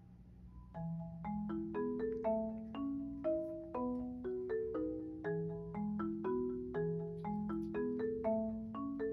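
Background music: a light melody of short struck notes that rise and fall, coming in louder about a second in after a quiet stretch.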